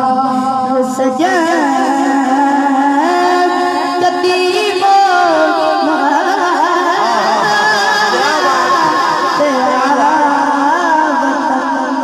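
A boy singing a Punjabi naat into a microphone, amplified, his voice moving between held notes and ornamented, wavering runs.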